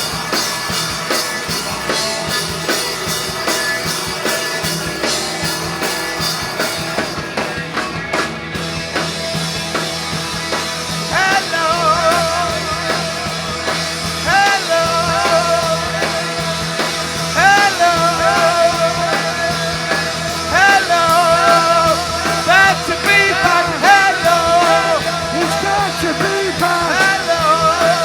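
Live rock band playing a loud, dense psychedelic punk passage over a steady low drone. About eleven seconds in, a high wavering lead line with bending notes comes in over it.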